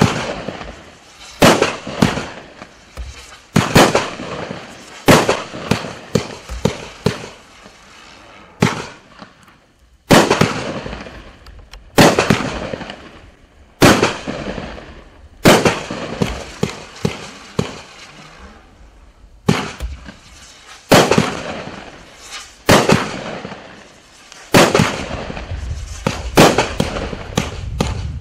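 A Sky Painter 'Mission Control' 36-shot, 500-gram consumer firework cake firing in sequence: sharp bangs every second or two, many followed by crackling trails as the strobe and crackle stars burn out. The shots come faster and denser near the end, over a low rumble.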